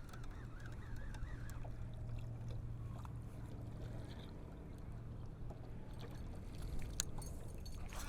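Steady low hum of a fishing boat on the lake, with a few light clicks and knocks near the end.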